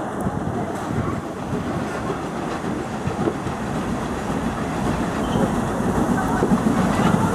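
Train running on the line: a steady rumble with wheels clattering over the rail joints, slowly growing louder.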